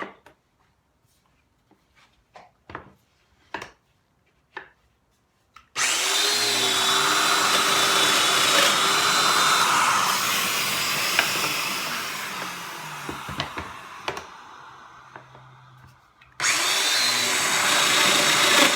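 A few light wooden knocks as a workpiece is set in a jig. Then a Festool Domino joiner starts with a loud, steady whine and plunges a mortise, its motor running down slowly once it is switched off. It starts up again about sixteen seconds in for the next mortise.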